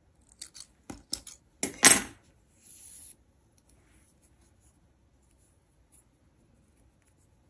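Scissors clicking, with a louder metal clack about two seconds in and a brief hiss just after: the yarn being snipped and the scissors handled.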